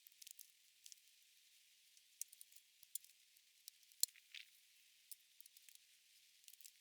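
Near silence: room tone with a few faint, scattered high-pitched clicks.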